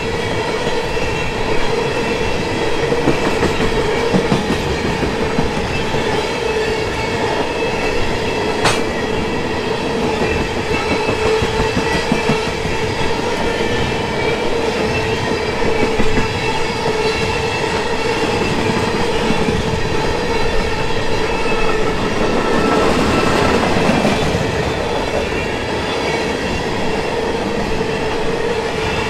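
Railroad tank cars rolling past at speed, their steel wheels clicking over the rail joints with a steady rumble and a steady ringing tone on top. One sharp clank stands out about nine seconds in.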